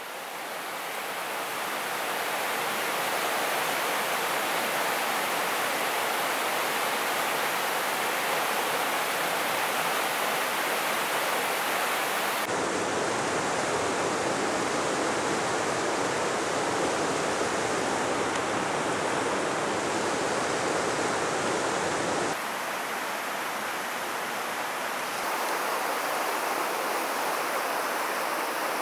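River water rushing over boulders and shallow rapids, a steady rush that fades in over the first few seconds and changes abruptly in tone twice, about 12 and 22 seconds in.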